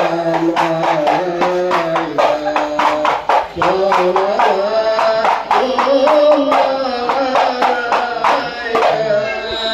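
Music: a voice singing over a quick, steady beat of drums.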